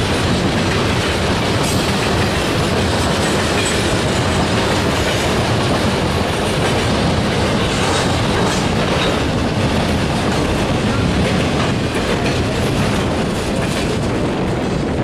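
Freight train of tank cars and autorack cars rolling past: a steady, loud rumble of steel wheels on rail, with wheels clicking over the rail joints.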